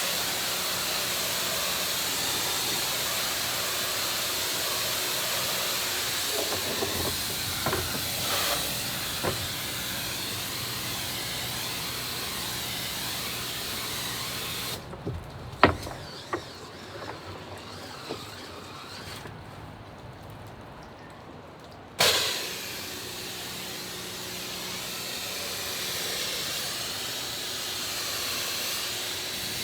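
Pressure washer spray hissing steadily as water is sprayed onto house siding. About halfway through, the spray cuts off for roughly seven seconds, with a few sharp clicks and one loud knock in the lull, then starts again with a sudden burst.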